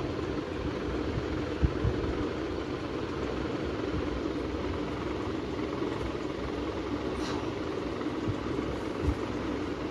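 Steady mechanical hum at a constant level, with two soft low thumps, one about one and a half seconds in and one near the end.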